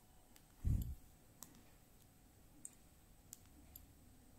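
A smartphone being handled while its screen is unlocked and locked: a handful of faint, scattered clicks and one louder low thump just under a second in.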